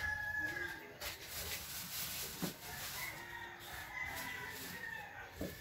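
A rooster crowing in long, drawn-out calls, with a couple of short light knocks in between.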